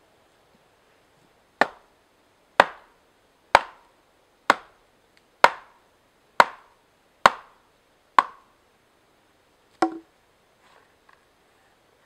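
Hand axe chopping down into the end of an upright log to split it for a Swedish firetorch: eight sharp, evenly spaced wooden blows about a second apart, then a duller knock and a few faint ticks near the end.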